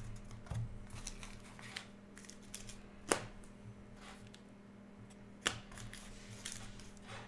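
Trading cards being handled: a few sharp clicks and lighter ticks as a stack of cards is thumbed through and tapped, over a faint steady hum.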